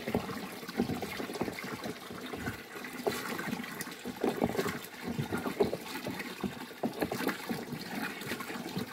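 Liquid fertilizer sloshing and churning in a plastic drum as it is stirred with a PVC pipe, in uneven strokes, over water running in from a hose.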